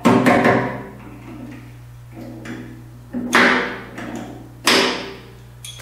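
Magnetic drill on a steel tractor bucket: a steady low hum, broken three times by short, sudden bursts of noise from the drill that die away quickly.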